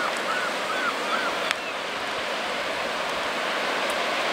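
Steady hiss of sea waves breaking on the shore. A small bird gives a quick run of short, rising-and-falling chirps during the first second or so, and there is a single sharp click about a second and a half in.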